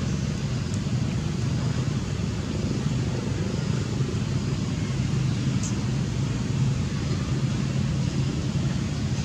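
Steady low rumbling background noise with a faint hum, unchanging throughout.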